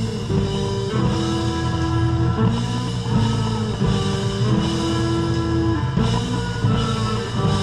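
Live band playing: drum kit, electric guitar and bass with a trumpet and a second horn holding long notes over the beat.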